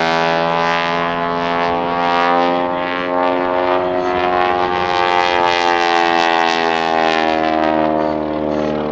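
Piston engine and propeller of a Grumman Ag Cat biplane running at steady power as it flies, with a steady pitched drone whose pitch slowly bends, dipping and rising as the plane manoeuvres past.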